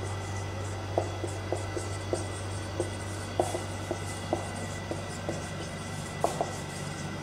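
Marker writing on a whiteboard: a string of short, irregularly spaced taps as the letters are formed, over a steady low hum.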